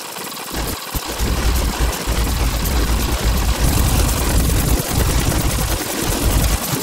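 Loud, harsh synthesizer sound samples played back one after another: a dense noisy texture with a heavy low rumble that changes every fraction of a second.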